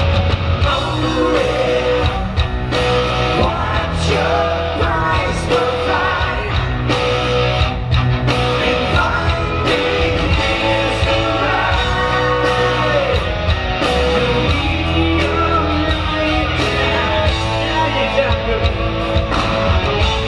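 Live rock band playing on stage, with electric guitars, drums and a lead singer, heard from within the audience.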